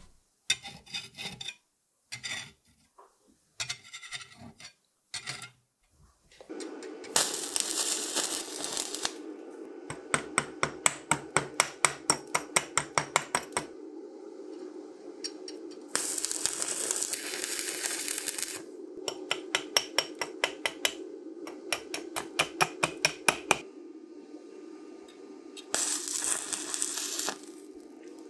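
Stick (arc) welder working on a corroded iron axe head: a few short scrapes as the electrode is touched to the metal, then a steady hum with loud sizzling stretches and runs of crackling ticks about four a second as the arc burns into a hole in the head.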